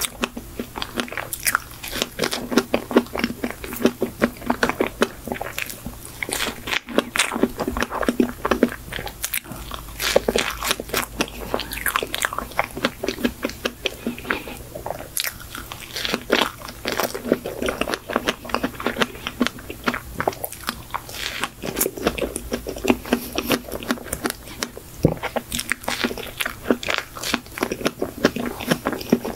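Close-miked biting and chewing of a strawberry folding cake (soft sponge, whipped cream and fresh strawberries), with a steady stream of small mouth clicks throughout.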